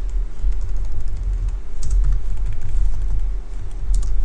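A few computer keyboard keystrokes, sharp clicks about two seconds in and near the end, over a steady low rumble.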